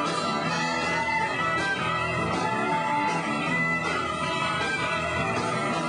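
Live rock band playing at a steady level, with guitar to the fore.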